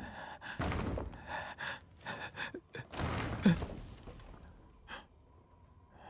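A man's quick, ragged gasping breaths, a run of short gasps over the first three seconds, then a faint steady high tone near the end.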